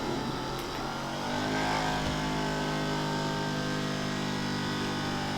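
Handheld percussion massager's electric motor running with a steady hum, pressed into the muscles of the inner thigh and hip; it gets louder and steadier about a second in.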